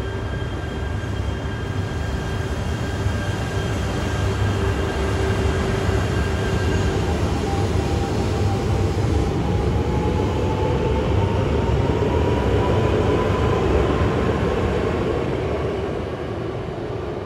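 E3 series Shinkansen train running past, its roar building to a peak and then fading, with a whine rising in pitch as it goes by.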